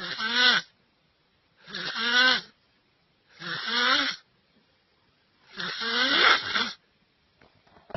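Strange, unusual snoring: four separate pitched snores about every two seconds, each wavering up and down in pitch, with silence between them.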